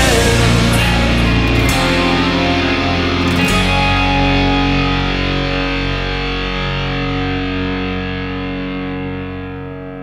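Rock music with distorted electric guitar. About three and a half seconds in, it settles onto a held chord that rings on and slowly fades.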